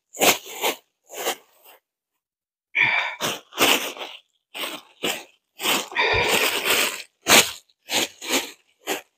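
Black plastic garbage bags rustling and crinkling in short, irregular bursts as they are pulled out and opened by hand, with a brief pause about two seconds in.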